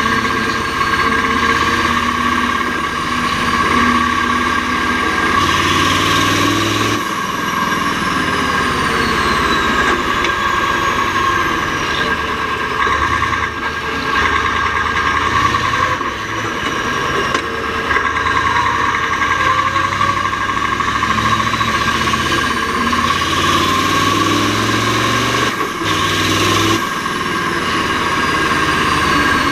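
Mack R-series truck's V8 diesel running hard. Its pitch climbs twice and drops suddenly at each gear change, with a steady high whine throughout and a high whistle that falls away after each shift.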